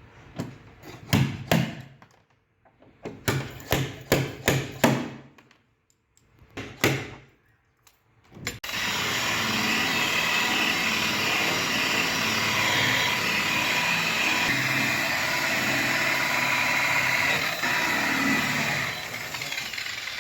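About a dozen sharp taps on metal in uneven groups, then a power tool starts and runs steadily for about ten seconds, used in paintless dent repair on a car's sill.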